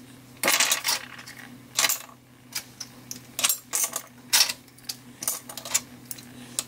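Hard scallop shells clinking and clacking against each other and the stainless steel steamer pot as steamed scallops are picked out one by one and their top shells pulled off. There are about ten sharp, irregular clicks, some louder than others.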